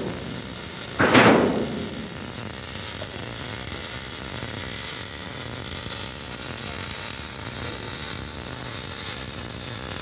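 One loud metallic knock with a short ring about a second in, like a hammer striking steel, over a steady hiss of fabrication-site noise.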